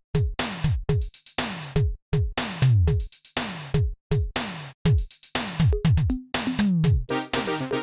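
Electronic music with a drum-machine beat: deep kick notes that drop in pitch about twice a second under sharp drum hits.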